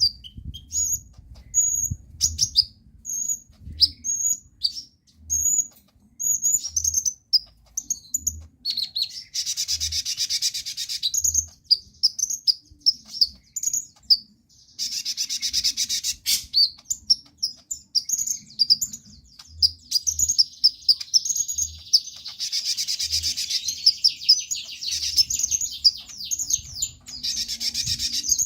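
A konin (kolibri ninja), a small sunbird, singing non-stop: rapid high-pitched chirps and twitters, broken by several stretches of fast, dense trilling.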